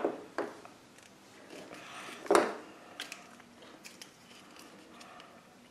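Small plastic Play-Doh molds and tools handled on a tabletop: scattered light clicks and knocks, with one louder knock about halfway through.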